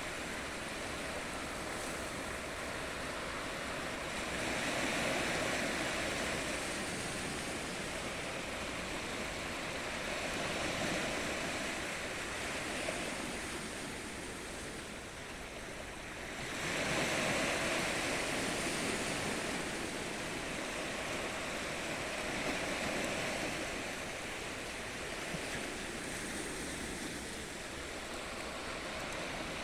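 Ocean waves breaking on a shore: a continuous wash of surf that swells with a new wave about every six seconds, the biggest one crashing in a little past halfway.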